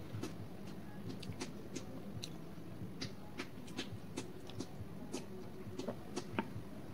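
Eating and drinking sounds: irregular wet mouth clicks and smacks from chewing a fried pakora and sipping tea from a mug, over a faint steady background hum.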